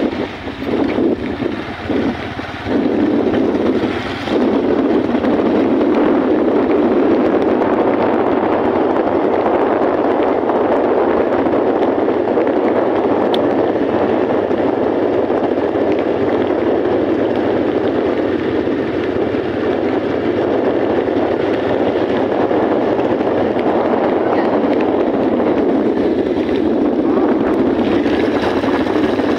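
Steady rush of wind on the microphone from a moving motorcycle, with the bike's engine running beneath it. The rush drops off briefly a few times in the first few seconds, then holds steady.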